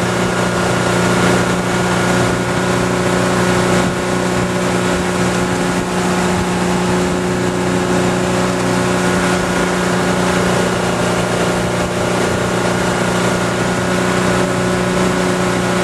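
Tow boat's engine running at a steady speed, heard from on board, with a steady rush of water from the wake.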